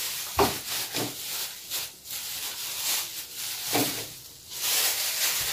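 Spatula spreading and smearing custard cream over cookies in a glass baking dish: a few soft, irregular scraping strokes.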